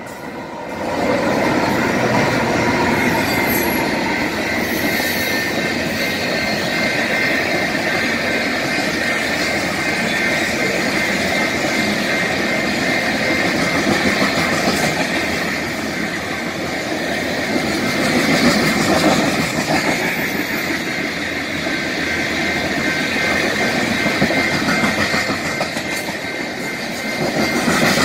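BNSF diesel freight locomotive passing close by, then a long string of crude oil tank cars rolling past, their steel wheels rumbling steadily over the rails with a steady high-pitched squeal.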